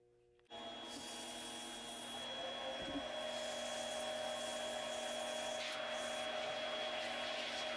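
Mini lathe motor running with a steady whine while sandpaper rubs against the spinning wood-and-epoxy ring blank, a continuous sanding hiss. It starts suddenly about half a second in.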